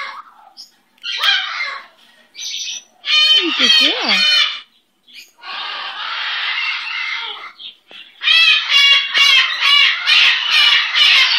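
Sulphur-crested cockatoo calling: scattered harsh squawks and chatter, then a rapid run of loud, repeated squawks from about eight seconds in.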